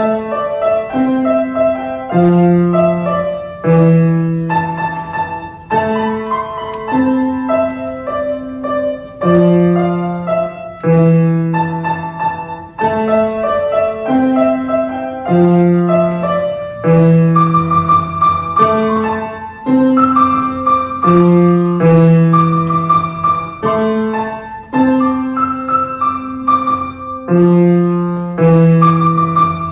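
Grand piano played solo: a flowing piece with held low notes changing every second or two beneath a melody line.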